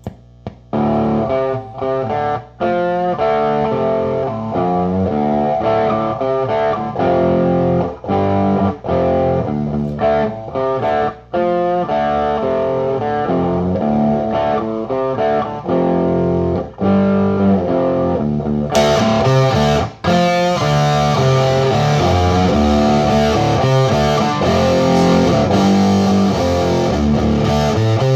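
Electric guitar played through a hand-built JCM 800-style valve amp into a Mesa 2x12 cabinet, with no pedals. It plays riffs and chords with brief pauses, first on the low-gain setting. About two-thirds of the way in it switches to the high-gain setting and the tone turns suddenly brighter.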